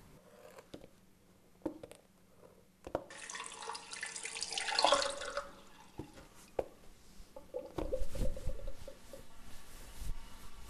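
Water running from a tap into a sink for about two and a half seconds, turned on and off abruptly, as hands are washed; afterwards a few light knocks and clicks.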